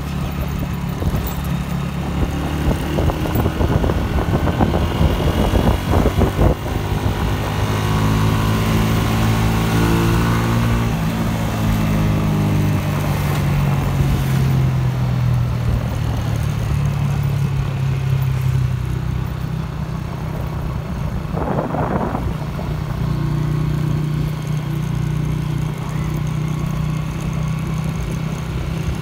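Motorcycle engine running at road speed while riding, with steady wind and tyre noise. Its pitch rises and then falls again between about seven and twelve seconds in.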